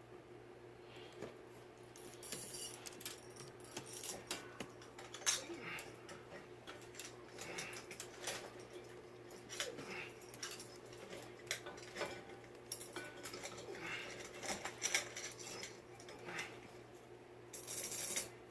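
Small metal parts clinking and rattling in irregular bursts as ceiling fan hardware is handled during assembly, over a faint steady hum.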